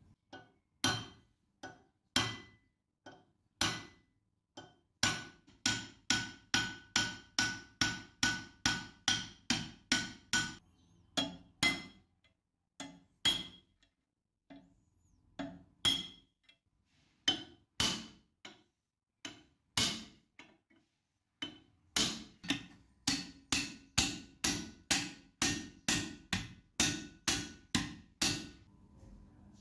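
Steel hammer blows on a punch held against the hardened serrated jaw of an old pipe wrench clamped in a vise, knocking the spot-welded jaw piece off the body. Sharp metal-on-metal strikes with a short ring, in runs of about two blows a second with a few pauses.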